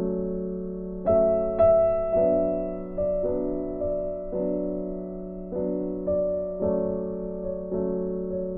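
Soft background piano music: slow, gentle chords struck about once a second, each note left to fade.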